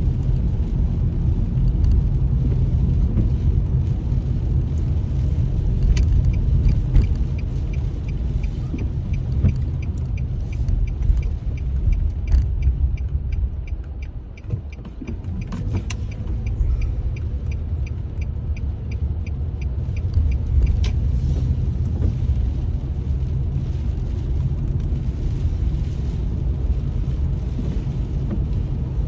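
Car interior road noise while driving in the rain: a steady low rumble from the engine and tyres. From about seven seconds in to about sixteen, a light ticking repeats about twice a second.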